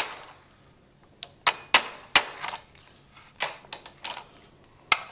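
One sharp rubber-mallet strike at the start, on a fiberglass armorer's hammer held against an M60 rear sight, driving the sight sideways out of its trunnion. It ends a fast run of blows and is followed by scattered lighter knocks and clicks at uneven intervals.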